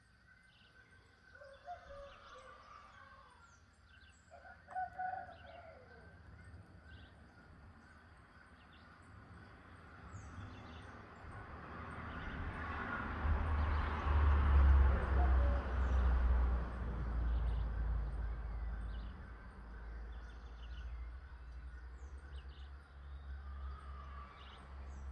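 Outdoor ambience: a rooster crows twice in the first few seconds while small birds chirp now and then. Near the middle a broad rushing sound with a low rumble swells up and then fades.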